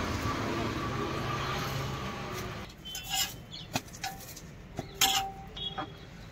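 Steady street traffic noise, then, after a cut, a few sharp metallic clinks and scrapes of a steel spatula on a flat iron dosa griddle, one of them ringing briefly.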